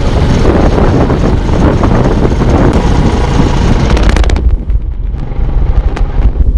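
Heavy wind rushing and buffeting over the camera microphone, over a deep rumble, as on a fast ride in an open vehicle. About four and a half seconds in, the rushing hiss cuts off sharply, leaving the low rumble and a few sharp knocks.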